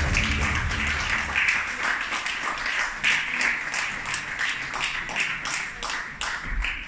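Audience applauding, with individual claps standing out close by, as the dance music fades out in the first second or so.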